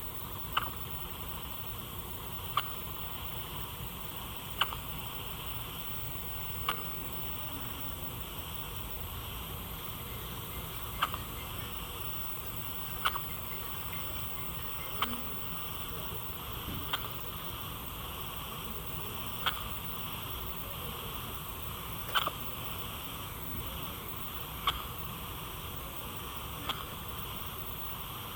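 Hiccups: about a dozen short, sharp hiccup sounds, spaced roughly two seconds apart, over a steady low hiss.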